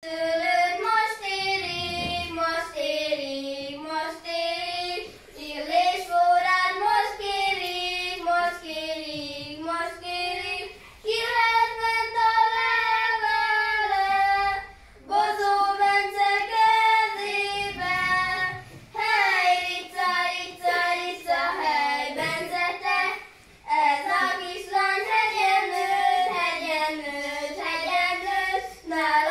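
Young children singing a song together without accompaniment, in sustained phrases with short breaks between them.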